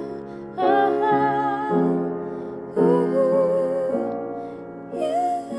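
Piano chords played slowly, a new chord about every two seconds, each left to ring and fade, with a woman singing along in long held notes with vibrato.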